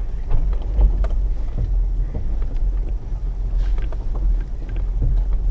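Four-wheel-drive vehicle driving over rough ground: a steady low rumble with scattered knocks and rattles.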